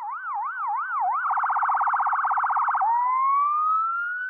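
Electronic siren sound effect: a wail rising and falling about three times a second, switching a little over a second in to a rapid warble, then near three seconds into one long slow rising sweep.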